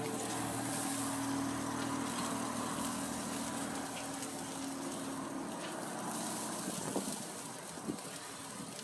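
A vehicle engine's low hum fades away over the first few seconds. Under it, meat sizzles steadily on a charcoal grill. A couple of faint clicks near the end come as a piece of meat is picked up off the grate.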